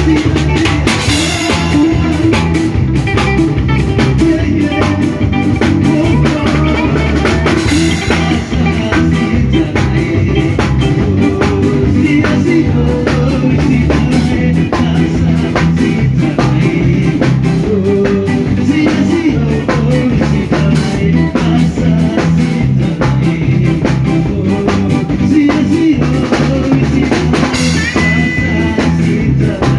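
Band music with a steady beat, played on drum kit and guitar.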